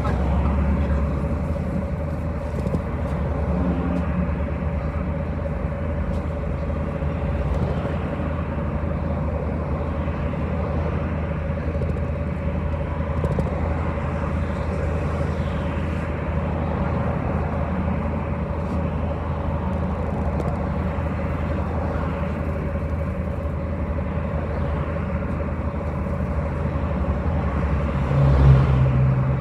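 City bus running, heard from inside the cabin: a steady drone of engine and road noise with a constant tone over it, swelling briefly louder near the end.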